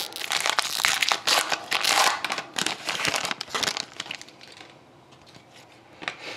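Foil wrapper of an Upper Deck SP Authentic hockey card pack crinkling as it is torn open and the cards are slid out. The crinkling stops about four seconds in, leaving only faint handling of the cards.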